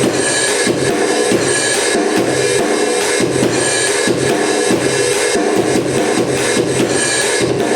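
Seven SD-7000 electronic drum kit played in a continuous groove of drum strikes and cymbals, heard through a low-quality amplified speaker.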